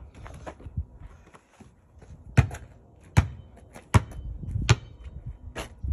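A basketball being dribbled: five sharp bounces a little under a second apart, starting about two seconds in, after a few softer knocks.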